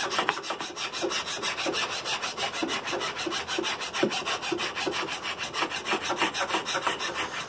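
A hand rasp scraping a pine wood block in quick, steady, repeated strokes, flattening and shaping it.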